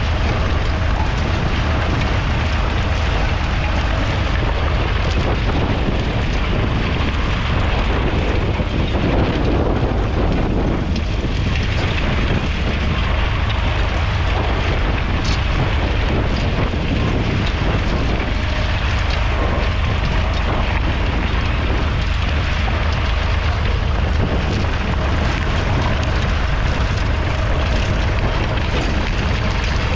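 1969 David Brown 780's 2.7-litre three-cylinder diesel engine running steadily, with heavy wind buffeting on the microphone.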